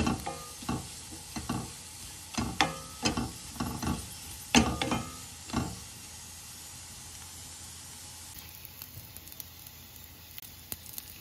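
Wooden spatula scraping and knocking against a stainless steel pot, stirring sliced onions, cashews and raisins that are frying with a steady sizzle. The stirring strokes stop about six seconds in, leaving the sizzle with faint small pops.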